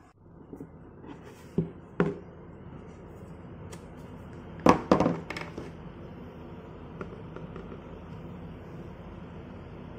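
Objects handled in an open cardboard shoe box, with two sharp knocks about a second and a half in and a louder cluster of knocks about five seconds in, over a steady hiss.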